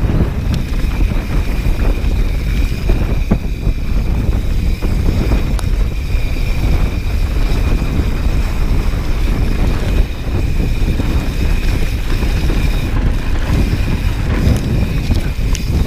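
Wind buffeting the action camera's microphone over the steady rumble of mountain bike tyres rolling fast downhill on a dusty dirt trail.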